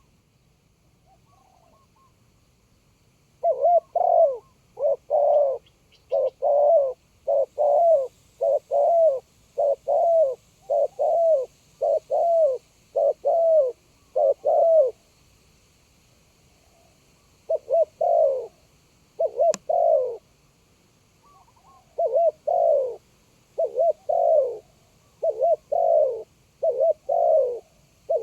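Spotted dove cooing: a long run of repeated coo notes in pairs, starting a few seconds in, breaking off for about two seconds past the middle, then carrying on. One sharp click partway through.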